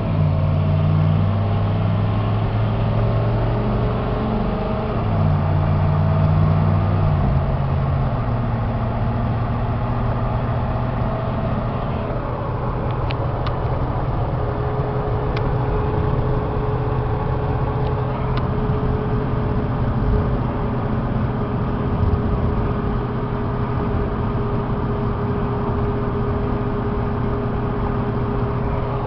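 Inside the cab of a 1998 GMC 3500 pickup under way: its 6.5-litre turbo diesel V8 runs steadily with road noise. The engine note strengthens briefly twice in the first eight seconds, then settles into a steady cruise, and a steady higher whine joins about halfway through.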